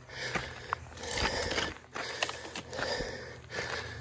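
A hiker's heavy breathing from exertion on a steep trail: loud breaths in and out about once a second. Short scuffs of footsteps on the dirt path fall between the breaths.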